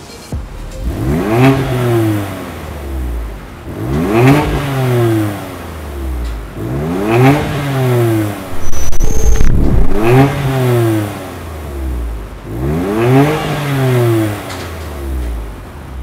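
BMW M4 Competition F82's twin-turbo straight-six, breathing through an Akrapovic titanium slip-on exhaust with Evolution link pipes, revved five times while stationary, each rev climbing and dropping back about every three seconds. A short high beep sounds about nine seconds in.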